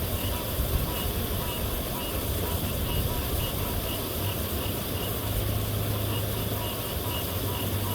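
Steady rush of water pouring over a dam spillway, a constant noise with a deep rumble underneath.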